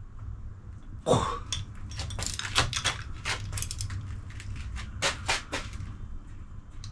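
Metal hand tools clicking and knocking in an irregular string of sharp taps, a 17 mm spanner and a 5 mm Allen key worked on a coilover strut's top nut, over a steady low hum.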